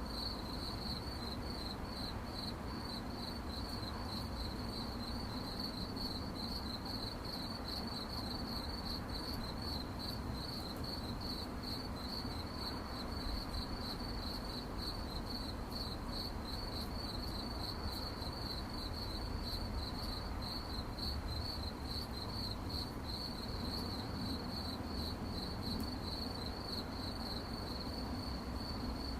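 Crickets chirping: a steady, high-pitched pulsing trill that goes on without a break, over a low background hum.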